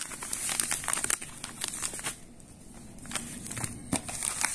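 Plastic pouches of powdered drink mix crinkling as they are handled, with a quieter pause about halfway and more crinkling near the end.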